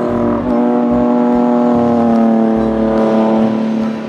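Race car engine running hard at high revs, one steady engine note with a short break about half a second in, then slowly falling in pitch as the car pulls away.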